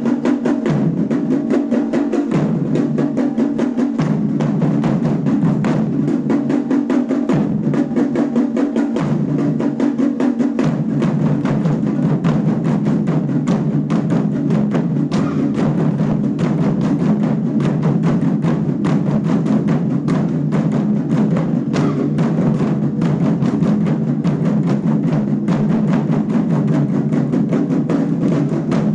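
A children's drum ensemble playing a fast, steady rhythm: many drums struck together in a dense, continuous stream of beats, with sharp clicking strokes mixed in.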